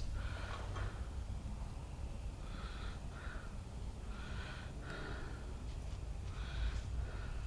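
A person breathing close to the microphone, in short paired in-and-out breaths about every two seconds, over a steady low hum.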